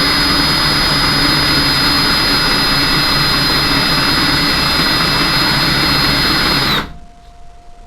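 Hand-held electric drill running at speed with a 16 mm bit, boring out the back of a wheel-stud hole in a steel van hub to take larger-shank studs. It makes a loud, steady whine and noise, then stops abruptly near the end.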